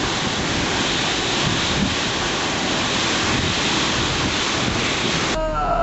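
Category 4 cyclone's gale-force wind and driving rain, a loud, steady rush with the wind buffeting the microphone. It cuts off abruptly near the end.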